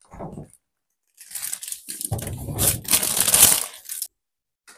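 Plastic bag of carrots crinkling and rustling as it is handled and pushed into a refrigerator, with a brief rustle at the start and a longer crackling stretch with a few dull knocks from about a second in.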